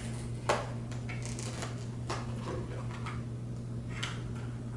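Small packaging being pulled open by hand: a sharp click about half a second in, then a run of crinkles and clicks, over a steady low hum.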